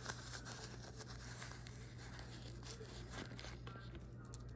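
Gift packaging rustling and crinkling as a small jewelry box and drawstring pouch are handled, with scattered faint light clicks.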